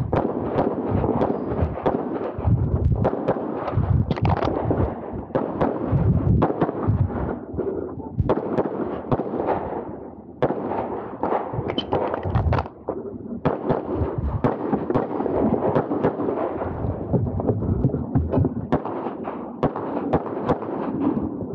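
Handgun shots fired in rapid strings during an IPSC course of fire, with brief pauses around the middle.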